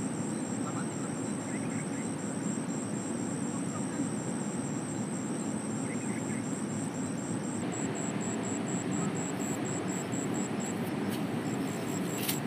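Steady rush of a river flowing over rocks, with a high, rapidly pulsing buzz running over it.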